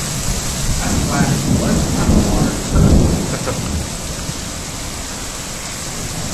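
Thunder rumbling over steady heavy rain; the rumble swells about a second in, is loudest around three seconds in, then eases off, leaving the hiss of rain.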